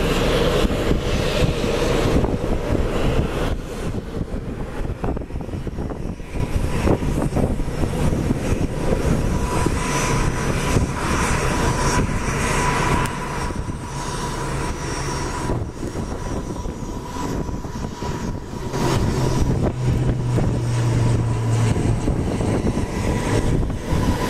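ATR twin-turboprop airliner climbing out after takeoff and passing overhead at takeoff power: a steady engine whine over a low propeller drone that swells again near the end.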